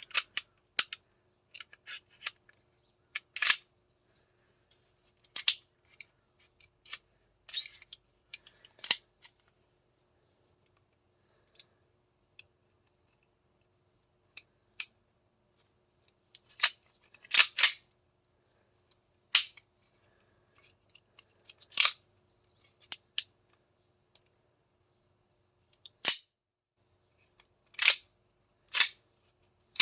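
Irregular sharp clicks and clacks from an airsoft 2011 pistol's parts being handled and fitted together, some in quick pairs, with quiet gaps between them.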